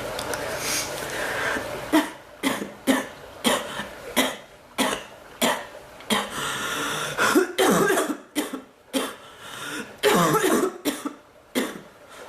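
A woman coughing in a long, repeated fit. After a quiet, hazy first two seconds come more than a dozen sharp coughs, about two a second, some of them longer and hacking.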